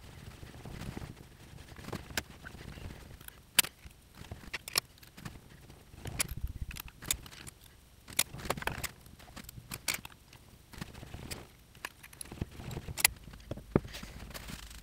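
Scattered small metal clicks and taps, with some sliding and scraping, as the headstock is shifted on a Taig mini lathe's aluminium bed and hex keys work its screws and are set down.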